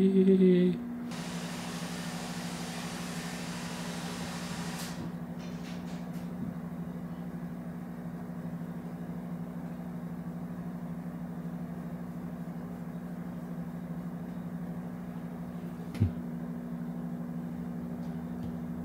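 A steady low two-tone hum, with a soft hiss over the first few seconds and a single click about 16 seconds in.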